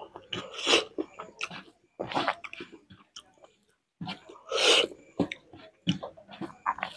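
A person chewing a mouthful of rice and curry eaten by hand, with many small wet clicks and a few short louder bursts of mouth noise.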